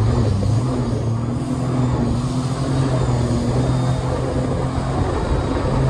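Home-built mini jet boat's engine running steadily at speed, a constant drone with water rushing along the hull.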